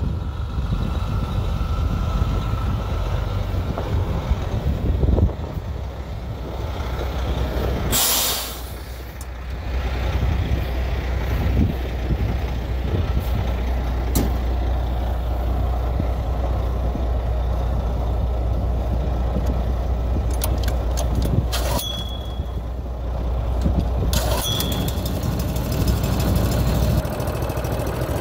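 International medium-duty truck's diesel engine idling steadily, with a loud hiss about eight seconds in and a few clicks near the end.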